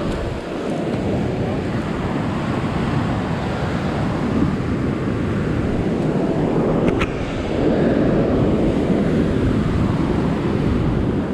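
Ocean surf washing over boulders below, mixed with wind buffeting the microphone, swelling louder about eight seconds in. A brief click about seven seconds in.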